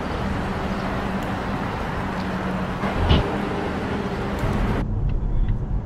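Steady road-traffic noise with a low hum, and a single loud thump about three seconds in. Near the end it switches abruptly to a duller, steadier vehicle drone with faint regular ticks.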